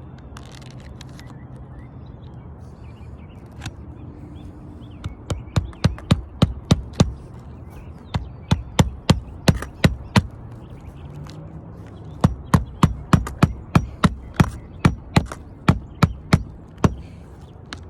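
Hammer driving roofing nails into shingles: a single tap, then three quick runs of sharp strikes, about four a second.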